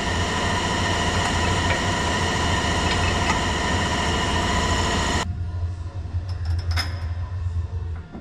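A truck engine idling steadily, with a constant whine over the drone. About five seconds in the high whine cuts off sharply, leaving a lower hum and a few short clicks.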